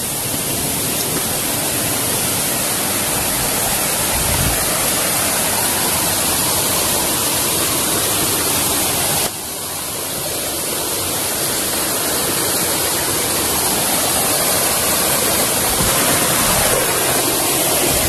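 Rushing water of a rocky forest stream and small waterfall: a steady, even rush that drops suddenly about halfway through and then builds back up.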